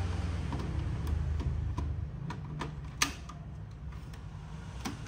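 Mechanical clicks and light clatter from a Kenwood B9 hi-fi system being operated, with a sharp, louder click about three seconds in. A low hum runs under the first two seconds.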